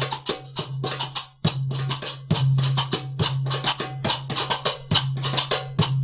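Background music: quick percussion hits, several a second, over a held low bass note.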